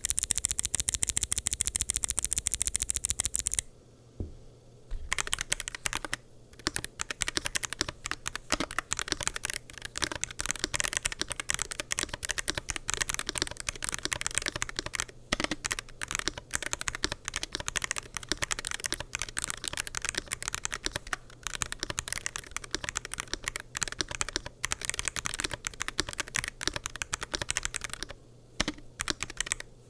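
Typing on a WLmouse Ying75 hall-effect keyboard with TTC Shadow magnetic switches, double-shot PBT keycaps, an aluminium plate and a gasket-mounted forged carbon-fibre case. It opens with a fast, very even run of clicks for a few seconds, then after a short pause goes on as steady typing with a brief gap near the end.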